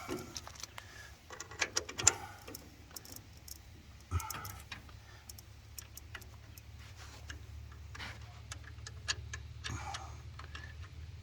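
Irregular small metallic clicks and clinks of a bolt being fitted and turned into a pump flange, a few louder clinks near the start, over a faint steady low hum.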